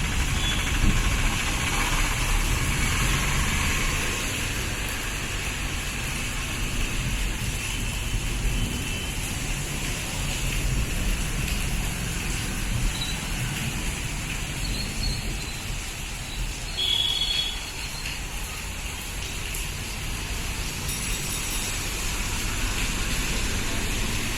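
Steady rain with road traffic passing below, a low vehicle rumble under the hiss of the rain. A brief high tone sounds about two-thirds of the way through.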